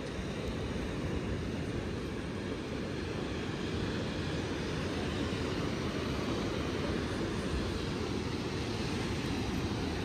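Steady low rumble of wind buffeting the microphone, mixed with the wash of breaking sea surf.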